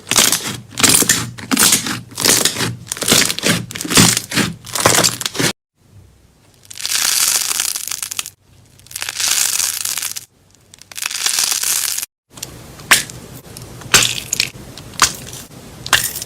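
Slime being squeezed and poked by hand. It crackles and pops densely, then makes three smooth hissing strokes, then scattered sharp clicks, with abrupt cuts between the sections.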